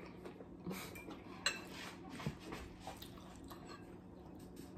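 Quiet meal-table sounds: a few faint clicks and clinks of a fork against a plate, over a low steady hum.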